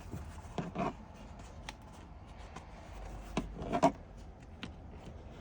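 Hands pulling and working a leather seat cover down over a truck seat: rubbing and scuffing of leather, with scattered small clicks and knocks, the sharpest near four seconds in.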